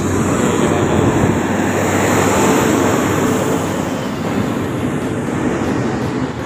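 Road traffic: a steady rush of vehicles passing on the road below, swelling about two to three seconds in and then easing off.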